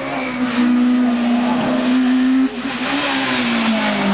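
Rally car engine running hard at high revs, its pitch holding steady, then breaking and dipping about two and a half seconds in, with a rougher hiss of tyre and road noise after it.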